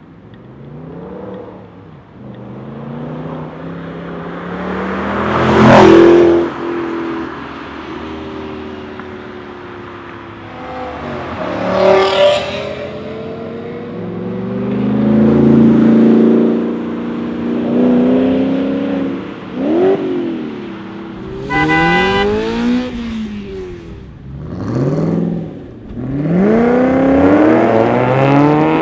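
Spyker C8 sports cars' 4.2-litre Audi V8 engines accelerating and passing one after another. The engine note rises and falls through gear changes, and the loudest passes come about six and twelve seconds in.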